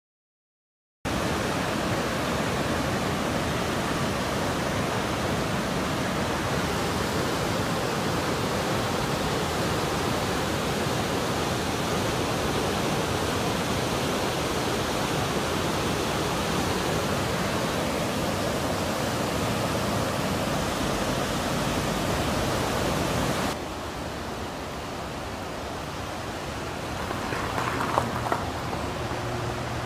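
Flash-flood water rushing in a torrent, a steady loud rushing noise. About two-thirds of the way in it drops to a quieter rush, with a couple of sharp knocks and a low hum near the end.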